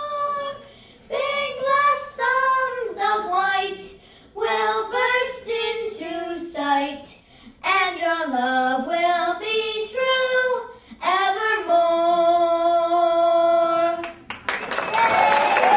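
Two young girls singing an unaccompanied song into a microphone, in short phrases that end on a long held note. Applause and cheering break out about a second before the end.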